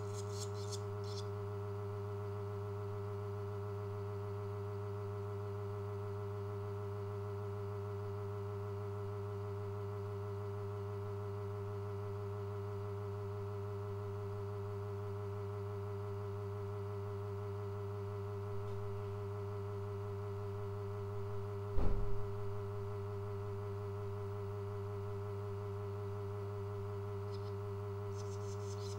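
A steady electrical hum, with barn swallow nestlings twittering in high, rapid begging calls during the first second and again near the end, as a person comes up to the nest. One loud thump about 22 seconds in.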